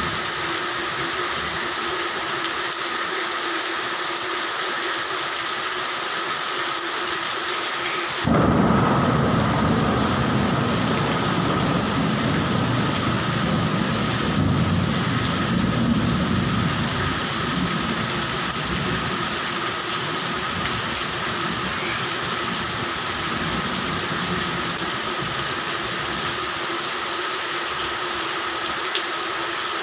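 Steady rain with thunder: about eight seconds in, a loud clap breaks into a low rolling rumble that fades away over the next ten seconds or so. Frogs call steadily underneath throughout.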